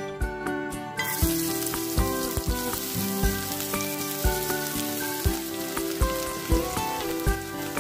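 Chopped onions sizzling in hot oil in a stone-coated frying pan, the sizzle starting suddenly about a second in as they hit the oil and then continuing steadily. Background music with a steady beat plays throughout.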